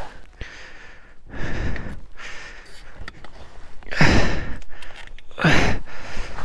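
A person breathing heavily close to the microphone: a few loud, sharp exhalations with quieter breathing between.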